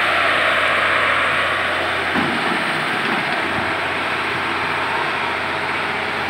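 Hydraulic excavator's diesel engine running steadily as it digs out the riverbed.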